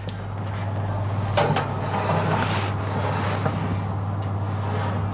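Steady rushing noise from a preheated 200 °C oven with its door open. A single knock comes about a second and a half in as the glass baking dish is set on the oven rack.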